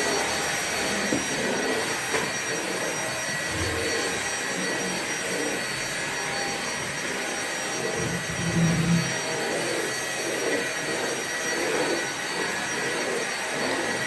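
Vacuum cleaner running steadily: a continuous rush of motor and air noise with a faint, constant high whine, swelling briefly in the low end about eight seconds in.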